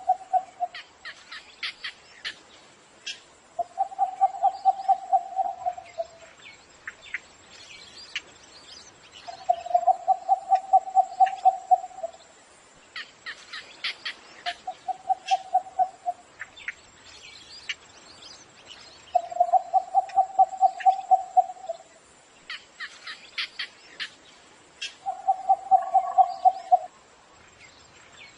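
Cinnamon bittern calling: repeated bouts of fast, low, pulsed notes, each bout lasting about two seconds and coming every four to five seconds. Fainter high chirps of smaller birds come in between, over a thin steady high whine.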